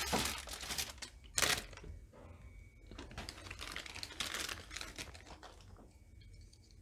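Irregular crinkling and rustling with light clicks as small phone parts and tools are handled during reassembly, loudest about a second and a half in and again in a cluster near the middle.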